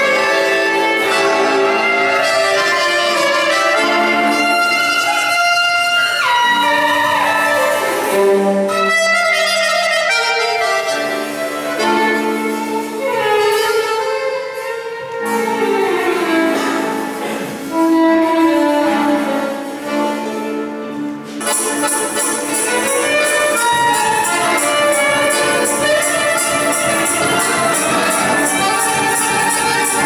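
Live instrumental music from a small band, with a violin carrying the tune over accordion and a drum kit. About two-thirds through, the percussion comes in with a steady, evenly repeating beat.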